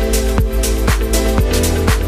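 Electronic background music with a steady beat, about two beats a second, over held synth chords.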